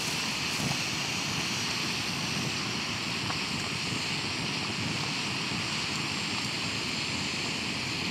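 Canister gas stove burner running with a steady, even hiss.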